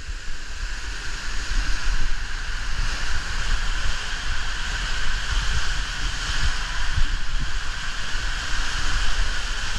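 Steady rush of water and air inside an enclosed tube water slide as a rider slides down it, with a low rumble underneath.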